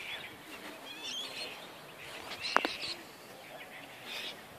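Birds chirping now and then over faint outdoor background noise, with one sharp click about two and a half seconds in.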